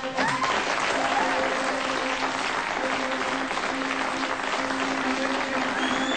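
Crowd applauding: dense clapping that starts suddenly and holds steady, over music with long held notes.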